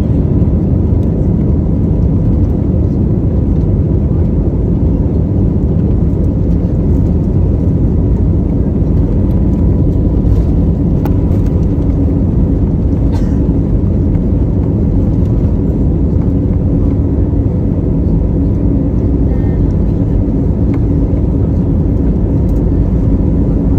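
Steady low rumble of an airliner's engines and airflow, heard inside the passenger cabin, with a faint steady whine.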